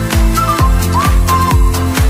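Upbeat electronic background music with a steady kick-drum beat, a little over two beats a second, under a high melody of short sliding notes.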